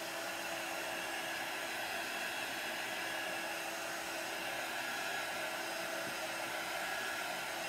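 Handheld craft heat tool running steadily, blowing hot air over wet chalk paste on a wooden sign to dry it: an even rush of air with a faint steady motor hum.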